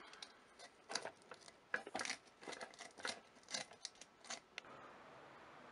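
Sandpaper rubbed in short, irregular strokes over the cut wooden edge inside an old box camera, smoothing it down; the strokes stop about four and a half seconds in.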